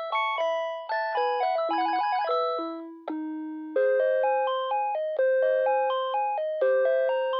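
Panasonic KX-TG5439 cordless phone playing its built-in melody ringtones: electronic, chime-like notes in a quick tune, each note dying away. About three seconds in, the tune ends on a low held note and a different, slower melody begins.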